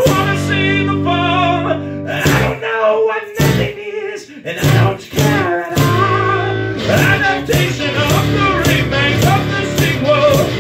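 A man singing to his own nylon-string classical guitar. A few sharp strums with brief gaps come about two seconds in, and evenly spaced strumming follows in the second half.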